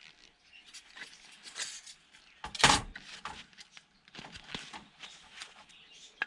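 Scattered clicks and knocks of metal and plastic parts being handled while a DVD player is taken apart, with one louder knock about two and a half seconds in.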